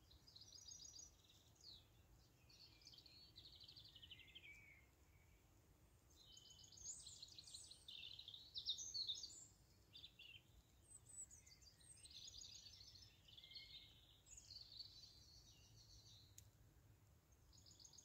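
Small songbirds singing: quick, high-pitched trilled and warbling phrases follow one another with short gaps, fullest in the middle stretch.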